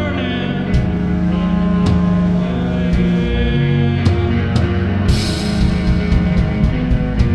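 Rock music: a full band playing sustained chords over a heavy bass, with drum hits that turn into a steady, quicker beat after a crash about five seconds in.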